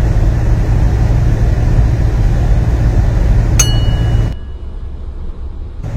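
Steady road rumble of a vehicle travelling on a highway. About three and a half seconds in comes a single sharp click with a brief metallic ring, and soon after the rumble cuts off suddenly to much quieter for over a second before coming back.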